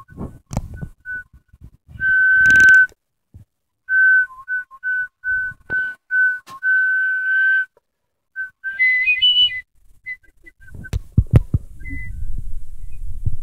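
Whistling at a steady pitch to attract a cat: one long note, then a run of short notes about two a second and another long note, then a few higher notes. Near the end, knocks and rubbing from the phone being handled.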